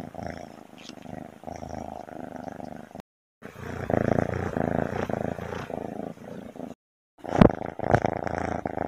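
Domestic cats purring, three cats in turn, each a steady purr that cuts off abruptly before the next begins. Two short knocks come during the third purr, near the end.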